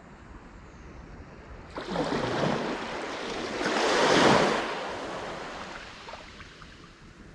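A small wave washing up the sand at the water's edge: a rush of surf that builds from about two seconds in, peaks near the middle and fades away.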